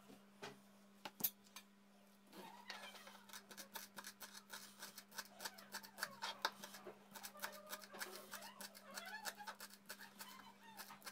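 Kitchen knife chopping celery leaves on a cutting board: quick, faint taps of the blade, several a second, starting about two seconds in.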